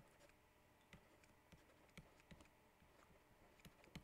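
Faint, irregular clicks and taps of a stylus writing on a tablet screen, over near-silent room tone.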